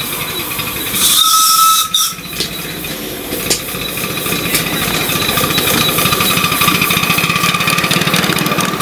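Miniature live-steam locomotive: a short whistle blast about a second in, then a steady hiss of steam as the engine moves off.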